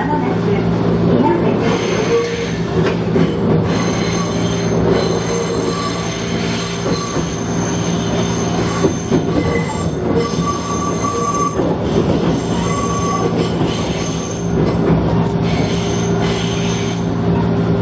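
Small local electric train running along the track, heard from the front of the car: steady motor hum and rolling wheel noise, with a brief higher squeal from the wheels around ten to thirteen seconds in.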